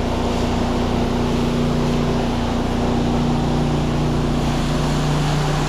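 Pressure washer running steadily with the spray gun open: a constant machine hum under the hiss of water spraying on a house wall.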